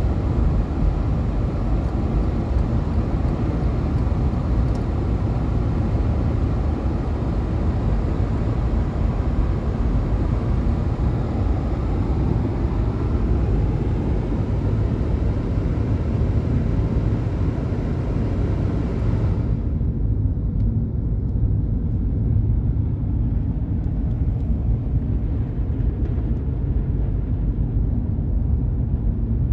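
Car driving: steady low rumble of engine and tyre noise with a hiss over it. About twenty seconds in, the hiss cuts out abruptly, leaving mostly the low rumble.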